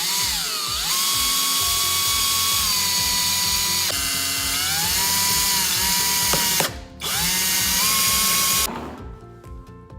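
Power drill driving screws: one long run of about six and a half seconds with the motor pitch sagging and shifting under load, a brief stop, then a second short run of under two seconds.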